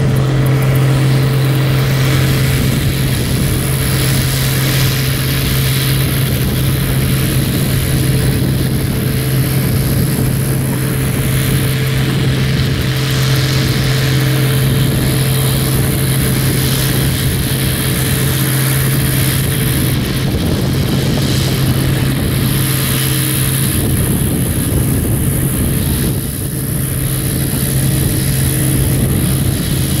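Case IH 1660 combine running steadily while harvesting soybeans with a 1020 header: a constant engine drone with a strong low hum that does not change.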